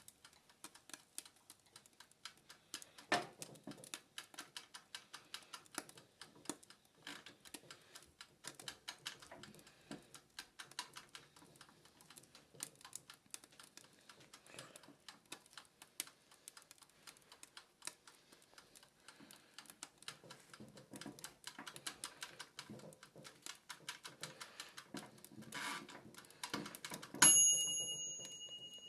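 Countertop oven's clockwork timer ticking rapidly and steadily, with a louder click a few seconds in. Near the end its bell dings once and rings out: the timer has run down and the baking time is up.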